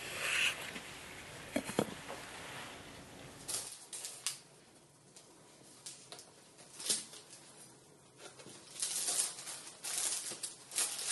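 A kitchen knife cutting through soft mochi and clicking against a wooden cutting board, then irregular crinkling of a plastic strawberry punnet being handled, loudest near the end.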